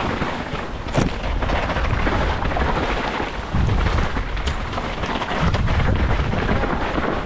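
Mountain bike riding fast down a rough dirt and rock trail, heard through a GoPro carried by the rider: a continuous rumble of wind buffeting the microphone and tyres running over dirt and stones, with a sharp knock about a second in.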